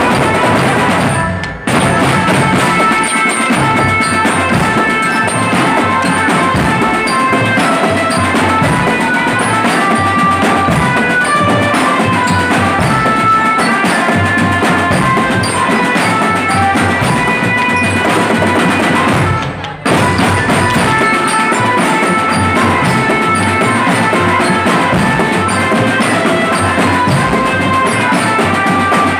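Marching drum band playing: bass drums, snare and tenor drums pounding out a rhythm under a melody of clear held notes from a marching glockenspiel. The sound drops out briefly twice, about a second and a half in and near twenty seconds in, and comes straight back each time.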